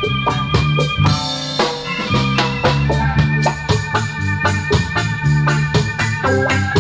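Instrumental reggae music: organ-like keyboard chords over a bass line and a steady drum beat.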